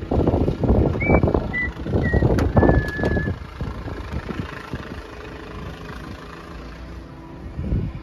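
Rubber hose being pushed down a pickup truck's fuel filler neck: rough scraping and rustling with a few short high squeaks for the first three seconds, then quieter steady wind.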